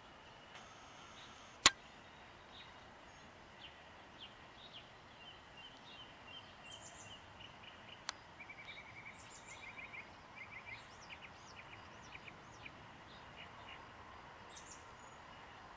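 Small songbirds chirping and twittering in quick series of short calls and trills, busier in the second half. A single sharp click about a second and a half in is the loudest sound, with a fainter click around eight seconds.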